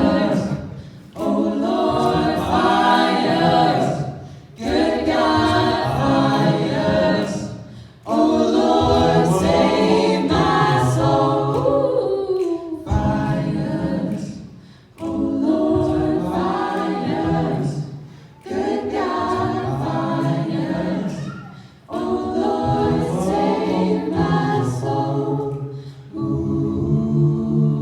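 A cappella vocal octet singing in close harmony, with a moving bass line under the upper voices, in phrases of a few seconds broken by short breaths.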